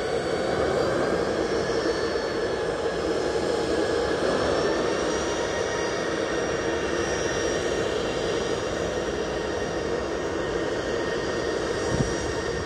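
Boeing 737's jet engines running with a steady rushing noise and a high whine over it, the whine edging slightly higher midway. A brief low thump near the end.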